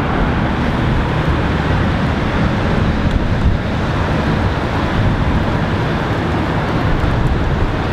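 Steady rumble of street traffic, with wind blowing on the microphone.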